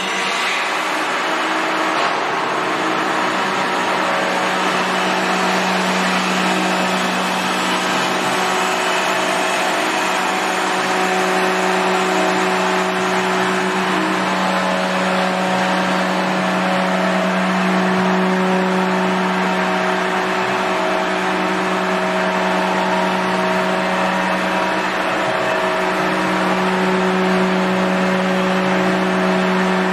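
Three-axis deep-hole gundrilling machine running: a steady mechanical hum with a constant tone over an even hiss, unchanging throughout.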